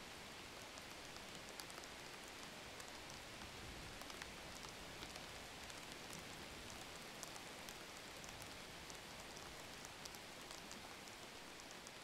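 Faint, steady hiss with many small scattered crackles, a rain-like background noise.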